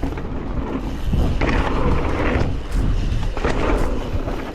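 Wind buffeting and rumble on an action-camera microphone while a mountain bike is ridden, swelling twice.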